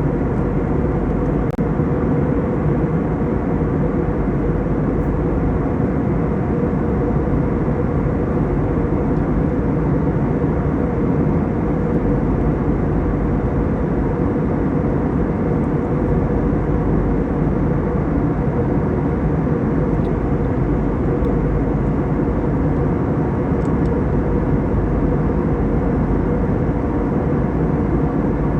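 Jet airliner cabin noise in flight: the steady rush of engines and airflow heard through the passenger cabin, with a faint steady hum in it.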